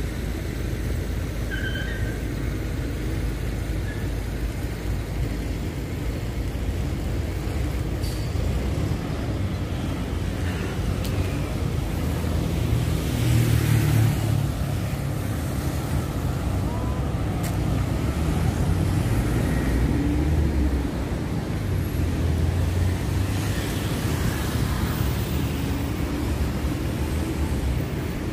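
Road traffic on a busy city avenue: a steady stream of cars passing, with a few louder vehicle passes, the loudest about halfway through.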